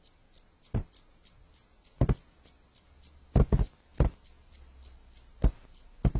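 Irregular soft thumps and knocks, about eight in all, spread unevenly, with the loudest as a quick double about three and a half seconds in.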